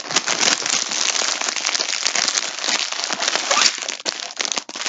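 Plastic bag crinkling and rustling as a ball of yarn is pushed back into it, a continuous crackly rustle throughout.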